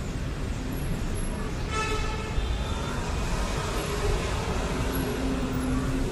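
City road traffic: a steady rumble of passing cars and buses, with a brief pitched sound about two seconds in.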